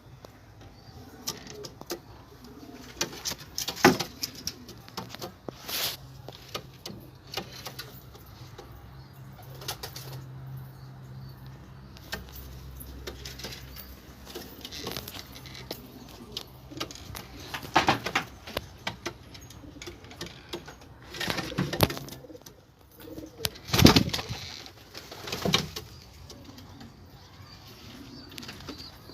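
Domestic pigeons cooing in a loft, a low murmuring coo that swells in the middle, with wing flaps and several sharp knocks, the loudest one about two-thirds of the way through.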